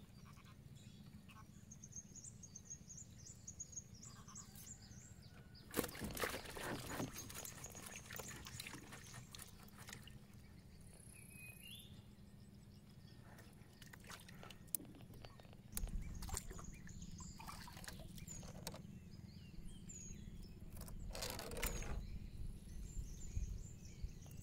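Birds chirping now and then over a low steady rumble, with a few brief knocks and rustles from a fishing net and trap being handled in a small wooden canoe, the loudest about six seconds in and again near the end.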